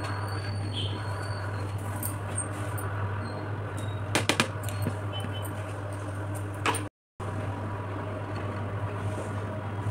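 A pot of vegetable pulao simmering on a cooktop under a steady low hum, with a few sharp clicks about four seconds in and one more just before seven seconds as coriander leaves are tipped in from a plastic bowl.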